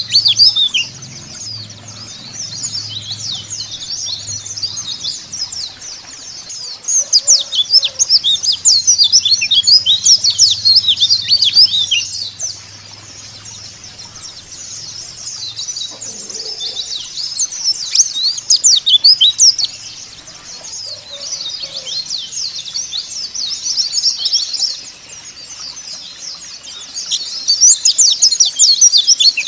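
Several white-eyes (pleci) twittering in dense, fast, high-pitched chirps. Louder bouts of song swell up about every ten seconds, with quieter twittering between.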